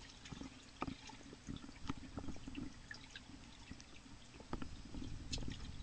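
Faint, muffled underwater sound of swimming-pool water heard through a submerged waterproof camera case: a low rumble with scattered small clicks and ticks.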